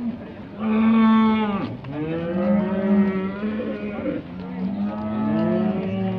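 Charolais heifers mooing: three long, drawn-out moos one after another, the loudest about a second in, the later calls overlapping as more than one animal calls.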